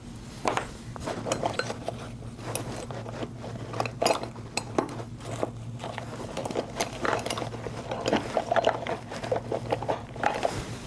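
Steel hair-shear blades clicking and scraping as the shear is opened, closed and handled while feeling for a rough spot on the blade: many light, irregular metal clinks and scrapes over a steady low hum.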